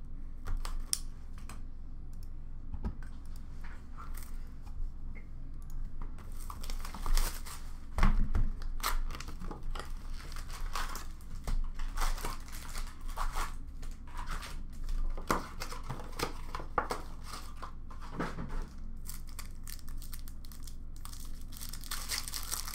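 Plastic shrink wrap on a box of hockey card packs crinkling and tearing as it is slit with a wooden opener and pulled off, in an irregular string of short crackles that pick up about six seconds in, then the foil card packs being handled.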